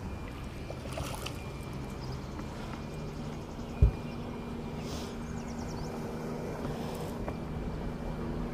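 Steady low hum of a bass boat's electric motor running, with one dull thump about four seconds in.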